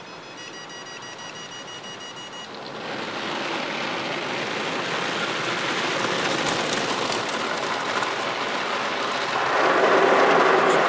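Rotating brushes and water spray of a Washman car wash tunnel beating on a car's windshield and body, heard from inside the cabin: a rain-like hiss that starts about three seconds in, grows louder, and is loudest near the end.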